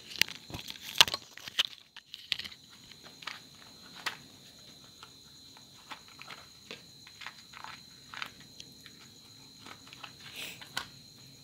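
Scattered small clicks and taps of parts and wires being handled on a workbench, thickest in the first two seconds and then sparse, over a continuous high cricket trill.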